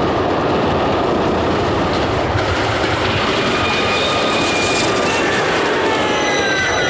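Railway train running at speed: a steady rushing rumble with faint high squeals that slide down in pitch near the end.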